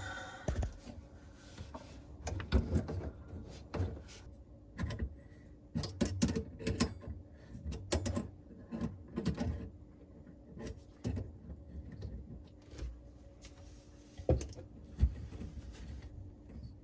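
Irregular clicks, knocks and clatter of metal plumbing being handled under a sink: chrome angle-stop shut-off valves being turned off and a braided supply hose being loosened from one with a tool. Two sharp knocks stand out near the end.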